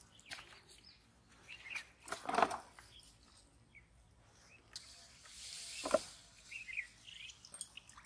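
Water splashing and sloshing in a plastic tub as hands grab at the fish inside, with two sharper splashes about two and six seconds in. Birds chirp briefly in the background.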